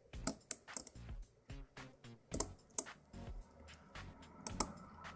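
Hook pick and tension tool clicking and scraping against the pin stacks inside an ERA 6-pin Euro cylinder during single-pin picking; irregular sharp clicks, a few of them louder.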